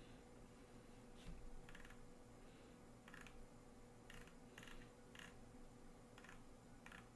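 Near silence with faint, irregular clicks from a computer keyboard and mouse, about one every second or so.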